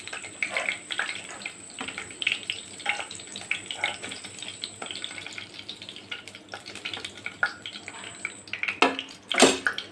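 Hot oil sizzling and crackling in a nonstick kadhai after frying capsicum, with a steel ladle scraping the pan as the last pieces are lifted out. A louder knock comes near the end.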